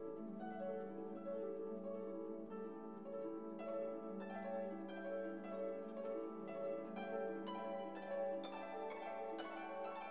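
Background music: plucked-string notes over a held low note, the plucking growing busier from about four seconds in.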